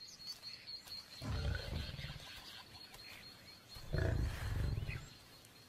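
Lion growling at a kill, two low growls about a second long each, the second a little louder: a warning to keep others off the carcass.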